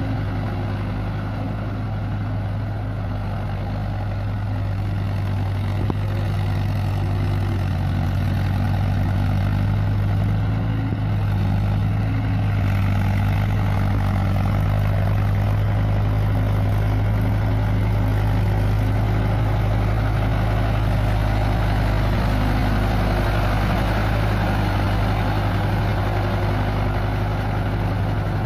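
Mahindra Yuvo 574 DI 4x4 tractor's diesel engine running steadily under load as it pulls a cultivator through deep paddy-field mud. It grows a little louder after about six seconds.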